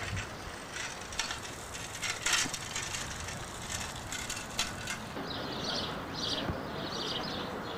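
Bicycle freewheel clicking as a cyclist rides close past. About five seconds in the sound changes to a string of short, high sounds repeating about twice a second.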